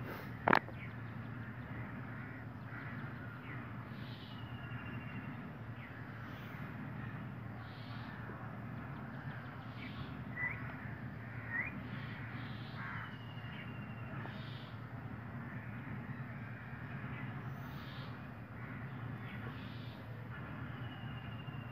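Crows cawing now and then in the background over a steady low hum, with one sharp click about half a second in.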